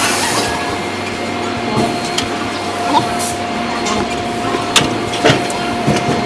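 Tire-changing machine breaking the bead of a truck tire off its rim: a steady whine with scattered sharp knocks and clicks.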